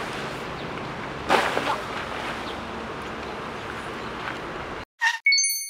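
Steady outdoor background noise with a brief louder sound about a second in, then the sound cuts off abruptly and a bright two-note chime sound effect rings out and fades near the end.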